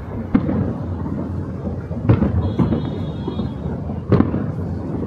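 Aerial fireworks shells bursting: three sharp bangs about two seconds apart, with a rolling, echoing rumble between them.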